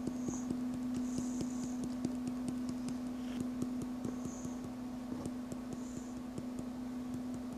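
Small irregular clicks and ticks of pigment jars being tapped to shake powder into a plastic dish, over a steady low hum.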